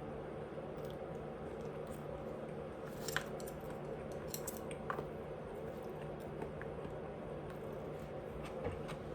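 A person chewing food close to the microphone, with a few sharp wet mouth clicks about three seconds in, around four to five seconds, and again near the end, over a steady low background hum.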